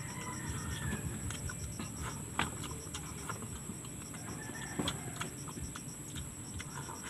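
Chickens in the background, with a rooster crowing faintly at the start and again about halfway through, over a steady high-pitched trill with rapid pulses. A couple of sharp mouth clicks from eating and finger-licking.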